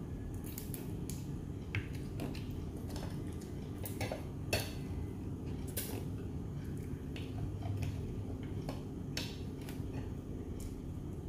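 Irregular clicks and cracks of steamed mud crab shell being broken and picked apart by hand, with light clinks on plates, over a steady low hum. The sharpest crack comes about four and a half seconds in.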